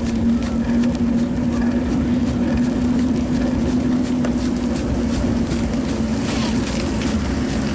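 Steady rolling noise of a bicycle ride on a paved street: a low rumble and a constant hum, with scattered small clicks and rattles and a brief hiss about six seconds in.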